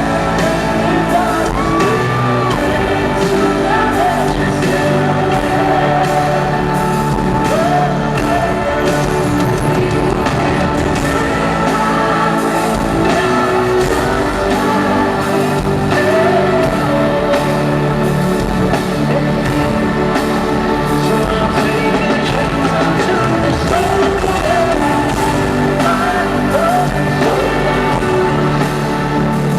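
Live pop-rock band music, loud, with a singing voice gliding over it.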